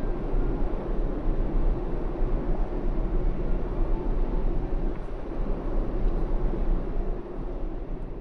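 Steady rushing noise with a deep low rumble from a large ferry under way, easing off slightly near the end.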